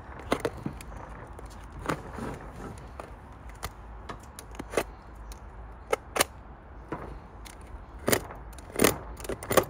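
A utility knife blade cutting and scraping into a white leather sneaker, heard as scattered sharp clicks and scrapes at irregular intervals, over a low steady rumble.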